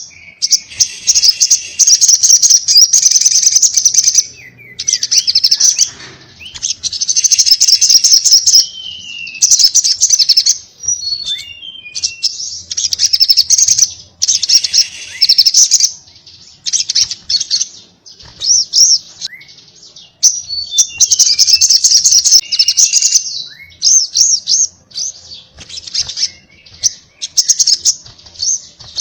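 Sogok ontong (sogon) sunbird singing: fast, high-pitched chattering phrases of one to four seconds each, with short gaps between them filled by brief downward-sliding chirps.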